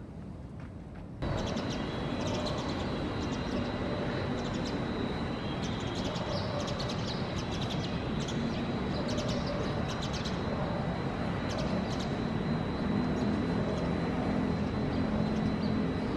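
Sparrows chirping, many short high chirps scattered throughout, over a steady hum of city traffic, with a faint steady high tone underneath. The chirping and traffic hum come in louder about a second in.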